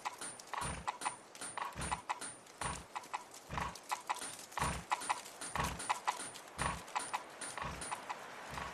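Horse hooves clip-clopping at a walk, an even run of hoofbeats with a heavier thud about once a second.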